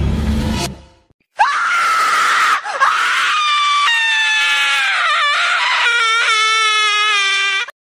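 Scary music fades out within the first second, then a loud, high-pitched scream starts. It is held in several long stretches with short breaks, sags slightly in pitch, and cuts off suddenly near the end.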